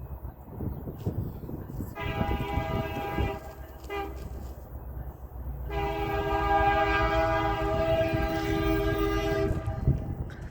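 Diesel freight locomotive's multi-note air horn sounding a blast of about a second, a brief toot, then a long blast of about four seconds, over the low rumble of the approaching train.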